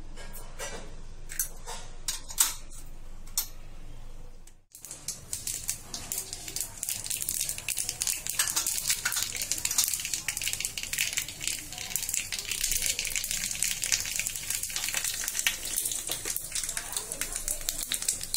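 Mustard and cumin seeds spluttering in hot oil in a small tempering pan: a dense, crackling run of pops over a hiss that grows busier, the sign that the oil is hot and the seeds are popping. Before it come a few sharp separate clicks and a short break about five seconds in.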